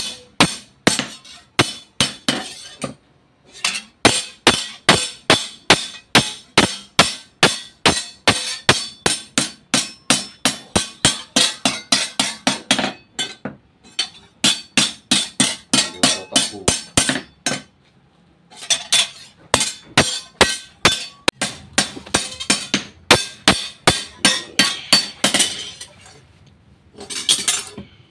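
Hand hammer beating a steel sugarcane-cutting machete blade on an anvil: a rapid run of ringing metallic blows, about three to four a second, broken by a few short pauses.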